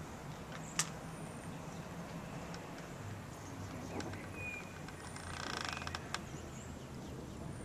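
A few sharp clicks, and a brief creak about two-thirds of the way through, over a faint low hum.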